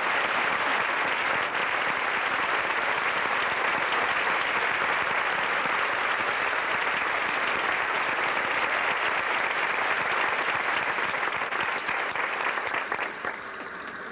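Theatre audience applauding, a dense, even clapping that thins out and fades near the end.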